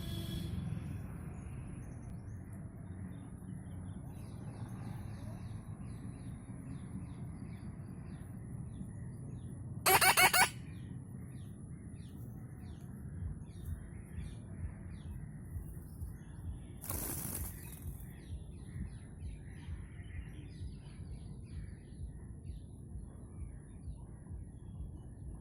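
Young red-breasted parakeet (moustached parakeet) calling: one loud harsh squawk about ten seconds in and another about seven seconds later. Faint short clicks are heard between and after the calls.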